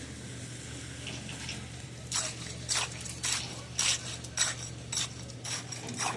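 Short sharp metallic clinks or scrapes, about two a second, starting about two seconds in, over a steady low hum.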